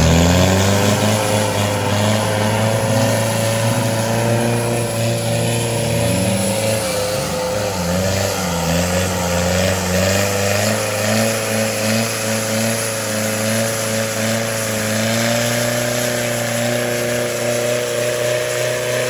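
Off-road 4x4's engine held at high revs in a steady drone while the vehicle churns bogged in deep clay mud on its winch line, the revs wavering slightly now and then.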